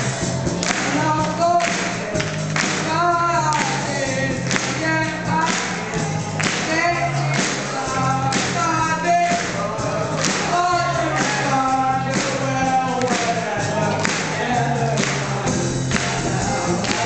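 Live rock band playing: a drum kit keeps a steady beat of about two strokes a second under electric bass and guitar, with a voice singing over it.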